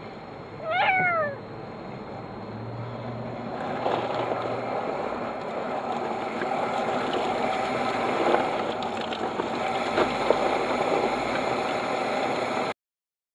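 A kitten stuck in a drain pipe gives one loud meow that falls in pitch, about a second in. From about three and a half seconds a rushing, splashing noise builds as water pours out of the pipe, with a few sharp clicks, then everything stops abruptly near the end.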